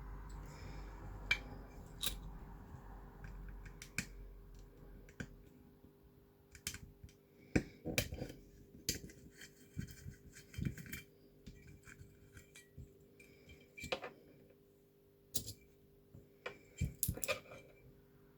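Irregular small clicks, taps and knocks of small electronic parts and tools being handled on a desk, as a corroded reversing camera is taken apart, with a low rumble of handling in the first few seconds.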